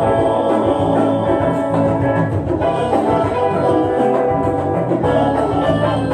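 Live acoustic band playing a slow pop song: acoustic guitars and hand drums.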